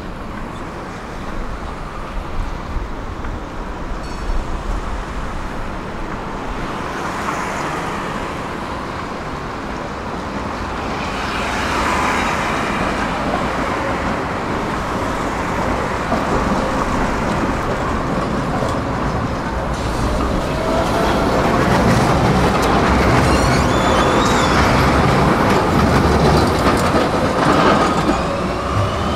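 City street traffic, then a Pesa Swing low-floor tram approaching over street tracks and passing close by, growing louder from about halfway through. A rising whine comes in near the end.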